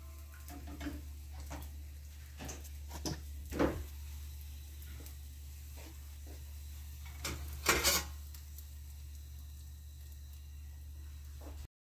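Clinks and knocks of a metal slotted spatula against a frying pan and a wire rack as a batter-fried stuffed poblano chile is lifted out of the oil, over a low steady hum. The loudest knocks come about three and a half and eight seconds in, and the sound cuts off just before the end.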